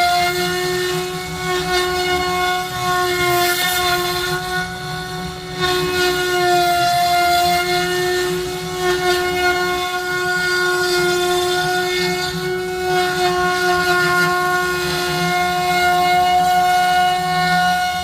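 CNC router spindle whining at one steady pitch while the bit carves wood, with a hissing cutting noise that swells and fades as the bit moves through the cut.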